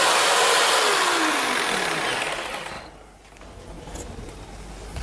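Bosch GST 135 BCE corded jigsaw, pendulum action on, finishing a cut through thick timber. The trigger is released and the motor winds down with a falling whine, stopping about two and a half seconds in.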